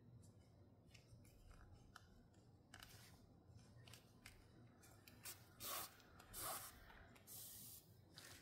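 Faint rubbing and rasping of macrame cord being drawn through crochet stitches with a needle, with a few louder swishes of the strand pulling through in the second half.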